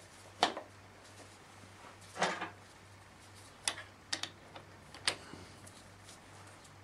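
A few separate metallic clicks and knocks, with one short rattling cluster about two seconds in: a socket on an extension bar and ratchet being fitted onto a motorcycle rear brake caliper's mounting bolt.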